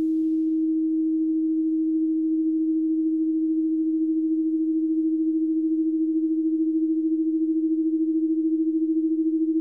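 A steady electronic pure tone at one low-middle pitch, with a quick pulsing wobble that grows more noticeable in the second half. A faint hiss fades out in the first half-second.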